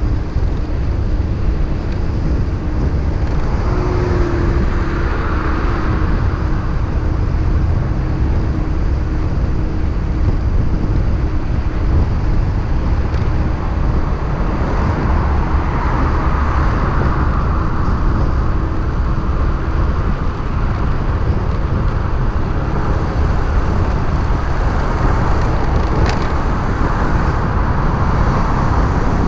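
Motorcycle running at riding speed on a road, with heavy wind rumble on the microphone and road noise that swells a few times.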